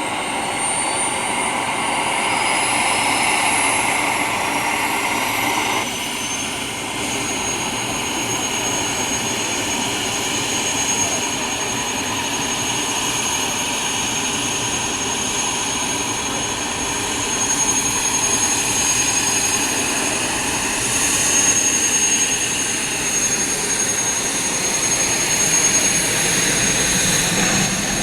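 Aircraft engine noise from a flying display: a steady roar with a high turbine-like whine that rises in pitch over the first few seconds, then holds steady, swelling slightly a few times near the end.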